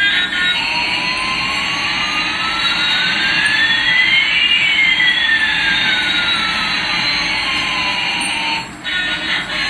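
Toy Airbus A380 playing its electronic jet-engine sound: a steady hiss with one whine rising and another falling, the two crossing midway. It cuts off shortly before the end.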